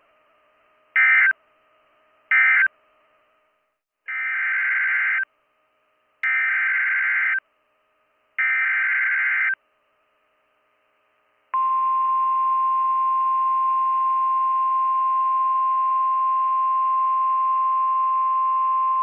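Emergency Alert System digital data bursts on NOAA Weather Radio. First come short end-of-message bursts closing the previous warning, then three longer screeching SAME header bursts announcing the next alert. About a third of the way in, a steady single-pitch 1050 Hz weather radio warning alarm tone starts and holds.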